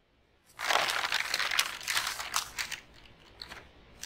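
Paper crumpling and rustling sound effect: a dense crackling burst that starts about half a second in and fades out by about three seconds, with a few fainter crackles near the end.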